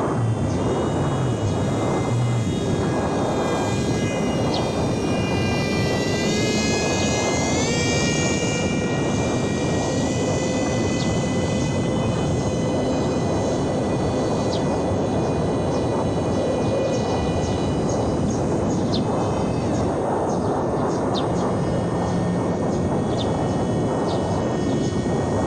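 Electric RC plane's motor and propeller whining steadily over a constant wash of noise. Its pitch rises about six to eight seconds in, then holds.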